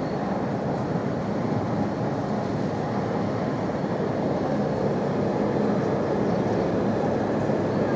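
Freight train passing at speed: a steady rumble of its wagons' wheels running on the rails.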